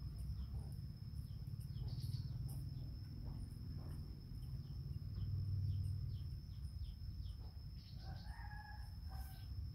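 A rooster crows once near the end, a call of about a second. Beneath it is a steady thin high-pitched drone and a low rumble.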